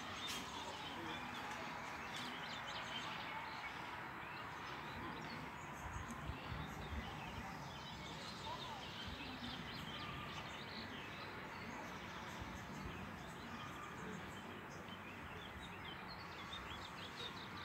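Outdoor ambience: a steady background hiss with small birds chirping now and then, and a brief low rumble about six seconds in.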